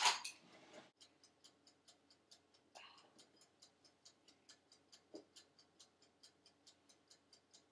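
Faint, fast, even ticking, about five ticks a second.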